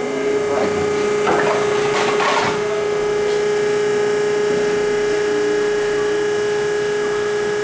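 The power lift of a Cleveland MKEL-60-T tilt kettle mixer raising its Sweet Fold agitator arm: a steady motor hum at one pitch, with a few rattling clunks between one and two and a half seconds in.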